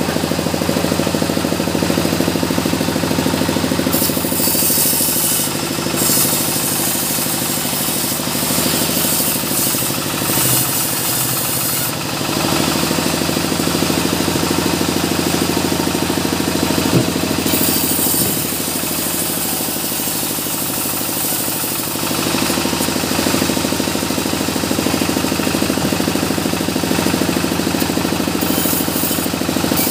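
Engine-driven, locally built circular saw ripping a small mahogany log: the engine runs steadily throughout, and the blade's high cutting sound rises and falls away several times as each pass goes through the wood.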